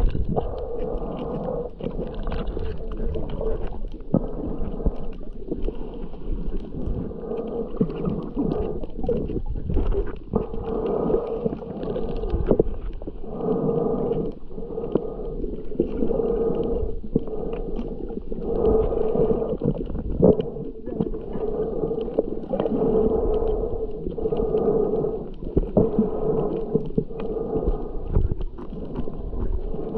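Muffled underwater water noise from a snorkeling camera, swelling and fading every couple of seconds.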